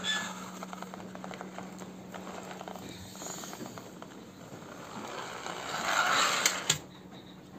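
Small plastic toy car pushed along the floor by hand, its wheels and gears clicking and rattling, with a louder rolling rush near the end cut off by two sharp clicks.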